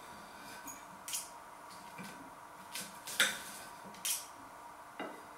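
Knife and fork clinking and scraping against a plate while cutting a pie: a handful of short, sharp clinks spread out, the loudest a little after three seconds in.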